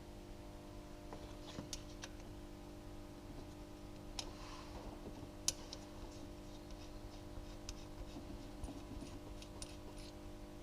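Scattered small clicks and taps of timing-belt idler pulley parts being handled and fitted back together by hand, over a steady low hum; one sharper click about halfway through.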